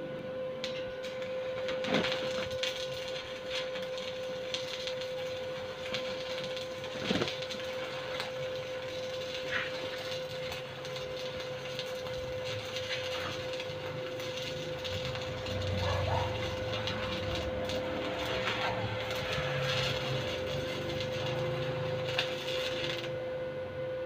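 Electric arc welding on a steel-tube frame: the arc crackles and sizzles steadily, over a steady hum, and the crackle stops near the end.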